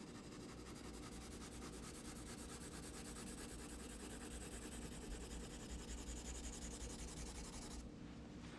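Rapid back-and-forth shading strokes of graphite on white sulphite paper, a fine scratchy rub that stops near the end.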